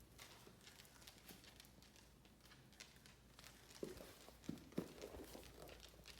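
A dog playing with a ball: faint tapping throughout, with a few louder thumps about four to five seconds in.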